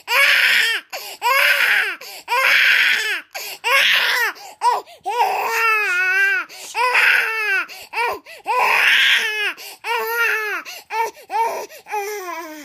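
Infant crying hard: a dozen or so wails, each rising and falling in pitch, with short breaks for breath between them; the wails turn shorter and softer near the end.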